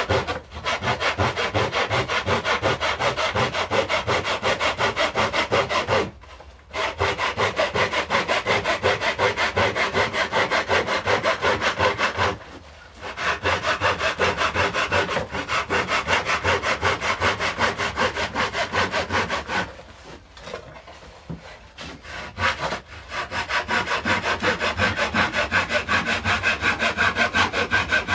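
Japanese hand saw cutting through a wooden mandolin brace in quick, even strokes, about three a second, stopping briefly twice and then for a few seconds before starting again.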